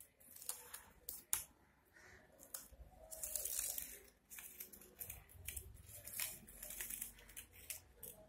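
Paper crinkling and crackling in the hands as green string is pulled through a small paper strawberry, in irregular rustles and sharp crackles.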